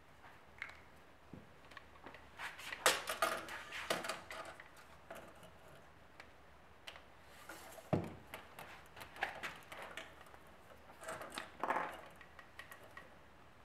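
Hand-tool handling on a wooden bench top: scattered clicks and taps from a tape measure, pen and small parts being picked up and set down. About eight seconds in, a brief hiss ends in a sharp knock, the loudest sound, as the tape measure blade retracts and snaps shut.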